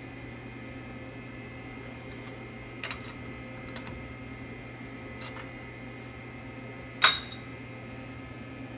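Steel vise handle on a milling-machine vise: a few light metal clicks as it is worked, then one sharp metallic clink with a short ring about seven seconds in as the handle is set down on the mill table. A steady low hum runs underneath.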